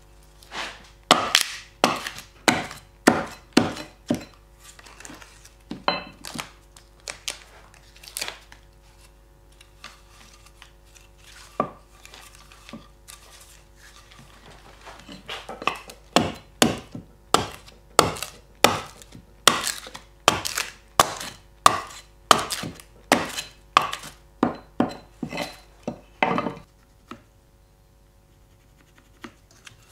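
Dry cherry wood being struck with a steel-bladed tool on a wooden chopping stump, roughing out a spoon blank: sharp chopping blows, a quick cluster in the first few seconds, a few scattered ones, then a steady run of about two a second from about halfway until a few seconds before the end.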